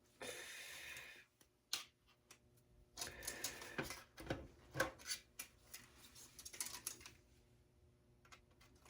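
Faint scraping and scattered sharp clicks and taps of plastic and metal computer parts being handled and pried loose during disassembly.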